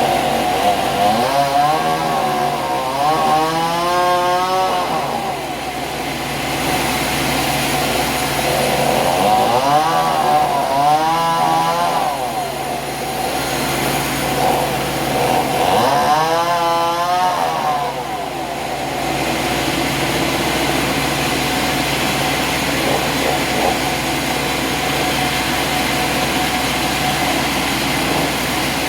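An engine-driven saw running, its pitch rising and falling three times, then running more steadily for the last ten seconds or so.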